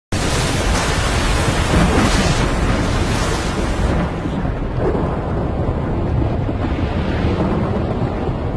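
Storm at sea: loud wind and crashing waves with a deep rumble. The hissing spray thins out about four seconds in, while the low rumble carries on.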